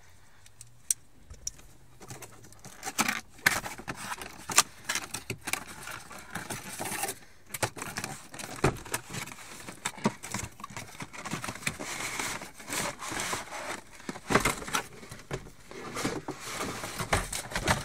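Cardboard toy box being opened by hand: starting about two seconds in, cardboard flaps scraping and rubbing with rustling and many scattered clicks and knocks, as the lid is worked open and a moulded pulp packing tray is lifted out.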